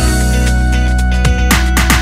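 Background music: a held bass and sustained pitched notes, with a few drum hits in the second second.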